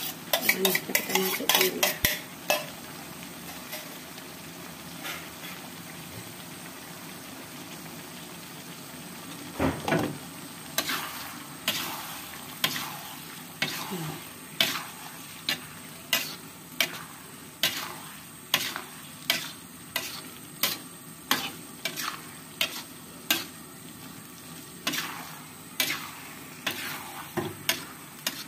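Fried potato cubes clattering off a plastic plate under a metal spatula into a wok of frying chili sambal for the first couple of seconds. From about ten seconds in, the metal spatula scrapes and knocks against the wok in steady stirring strokes, a little more than one a second, over a low sizzle.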